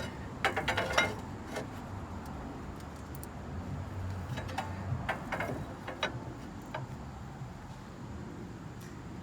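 Steel pry bar clinking and knocking against a 2010 Jeep Wrangler JKU's front suspension while levering a bump stop into the coil spring: a quick run of metal knocks about half a second to a second in, the loudest, then scattered clicks a few seconds later, over a low steady hum.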